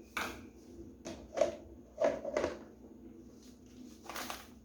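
A handful of short scrapes and knocks from kitchen handling while cornmeal is added to a blender, the loudest about a second and a half in and a slightly longer one near the end.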